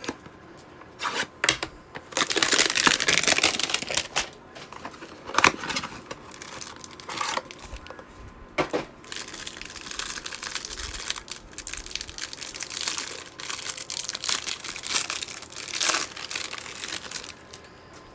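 Trading card hanger box being torn open by hand: cardboard tearing and packaging crinkling in irregular stretches, with scattered sharp clicks and snaps.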